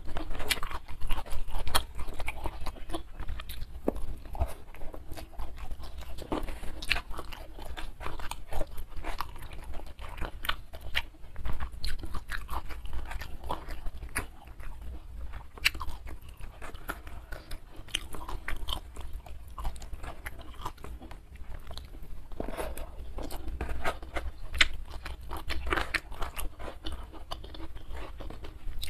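Close-miked chewing of hand-fed mouthfuls of rice with leunca berries and fried salted fish, with frequent irregular crunches and wet mouth sounds.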